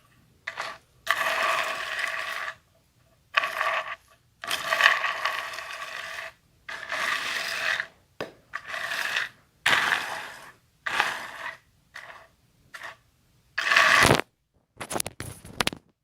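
Bissell vacuum cleaner's spinning brushroll crunching over debris in a dozen or so short bursts, each starting and stopping abruptly, with a steady whine running through the longer ones.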